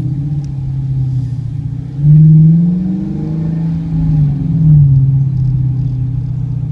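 Dodge Charger R/T's Hemi V8 through Flowmaster mufflers running with a deep exhaust note, the revs jumping up about two seconds in and again near five seconds before settling back.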